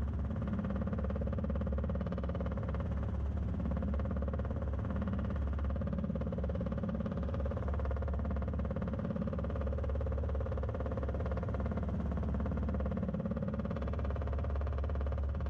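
Robinson R22 helicopter's engine and main rotor heard as a steady drone through the cockpit intercom, holding even with no change in pitch.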